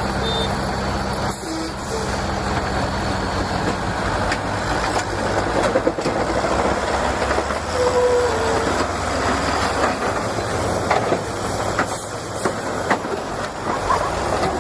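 Heavy vehicle noise: a steady low engine hum, then from about a second in a loud rattling rumble with scattered knocks.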